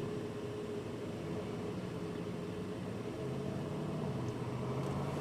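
Car engine running with a steady hum, its pitch rising slowly in the second half as the car picks up speed.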